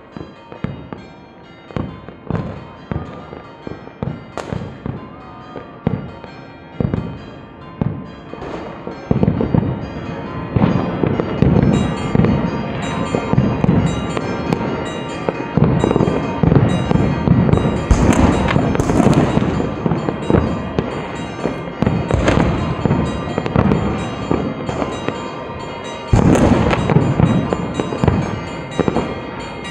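Fireworks and firecrackers going off. For the first nine seconds or so there are separate sharp bangs about once a second. After that comes a dense, louder, continuous barrage of crackling bangs.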